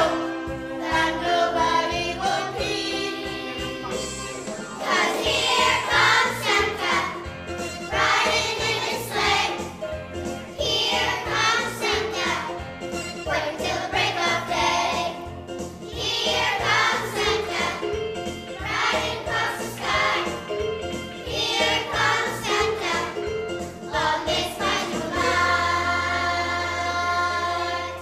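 Primary school children's choir singing with musical accompaniment, ending on a long held note near the end.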